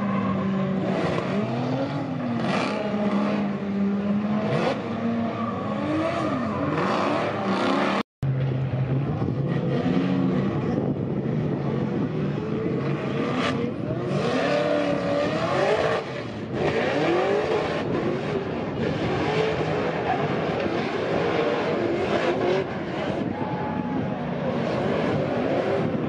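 Drift cars' race engines revving hard, their pitch rising and falling again and again as the drivers work the throttle through the slide. The sound drops out briefly about eight seconds in.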